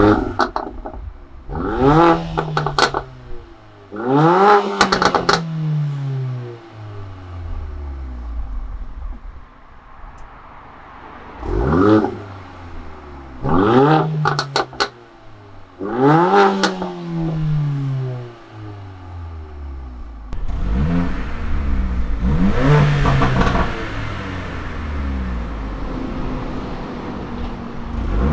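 Mercedes-AMG CLA45's turbocharged 2.0-litre four-cylinder, breathing through a REMUS cat-back sports exhaust, revved at a standstill in sharp blips that each rise and fall in pitch. There are three quick blips with the exhaust valves half open, then three more with the valves fully open, followed by a longer spell of more continuous engine sound.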